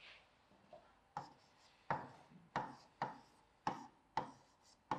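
Stylus tip tapping and scratching against the glass of an interactive whiteboard while handwriting, about seven faint sharp taps at uneven spacing.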